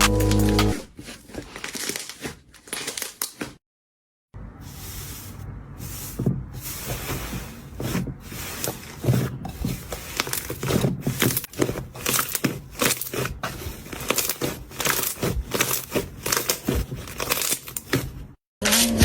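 Slime being squished and stretched by hand, giving a dense run of crackling clicks and pops with some crinkly rustling, broken by a brief silence about four seconds in.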